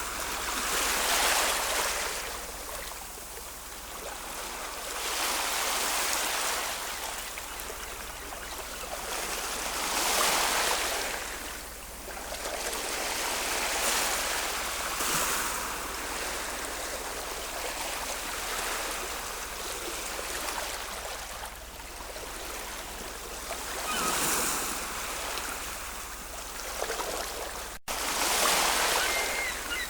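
Ocean waves breaking and washing ashore, the surf swelling and fading every four to five seconds. The sound drops out for an instant shortly before the end.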